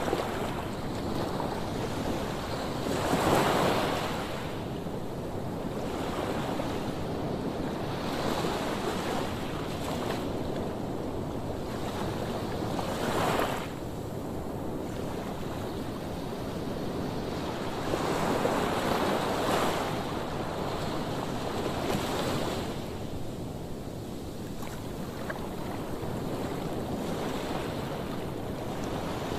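Rough, heavy surf breaking on a sand beach, the roar of the waves swelling into a louder crash every few seconds. Wind buffets the microphone throughout.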